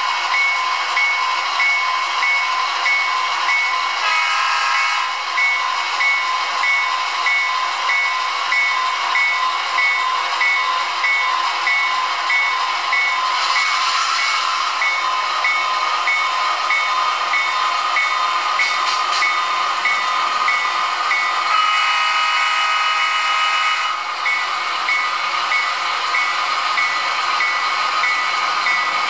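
Sound effects from an HO-scale model diesel locomotive's onboard sound decoder: a steady engine hum and hiss with a bell pinging at a regular beat. A short horn blast comes about four seconds in and a longer one about 22 seconds in.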